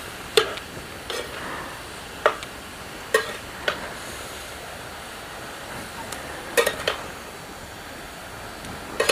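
A metal spatula scrapes and knocks irregularly against a steel kadhai as grated carrots are stirred and sautéed in ghee, over a steady sizzle.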